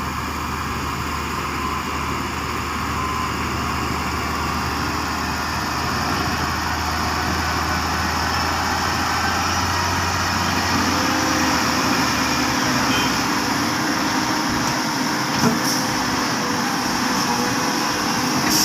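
Heavy diesel earthmoving machinery running steadily, its engine note changing about two-thirds of the way through, with a single sharp clank near the end.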